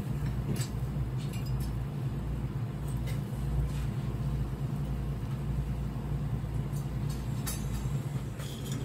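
Seafood grilling on a wire grill over a small tabletop charcoal brazier, with a faint sizzle and scattered sharp pops and ticks, over a steady low hum.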